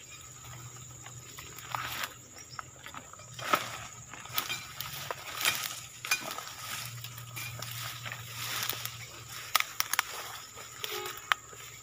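Dry brush and stalks rustling, crackling and snapping in irregular bursts as people push through dense undergrowth on foot.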